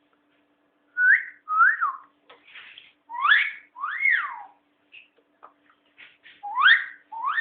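Pet parrot whistling: a run of clear whistled notes that rise and fall in pitch, starting about a second in, with short pauses between them.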